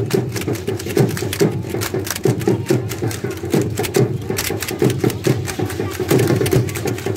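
Matachines dance percussion: a hand drum beaten in a driving rhythm, layered with the dense clicking and clattering of the dancers' tin-soled sandals striking the pavement.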